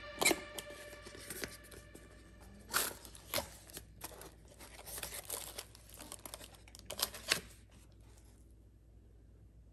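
Cardboard and plastic packaging being handled as a small box is opened and a plastic-wrapped lid and paper card are pulled out: a few short bursts of tearing and crinkling, then near quiet for the last couple of seconds.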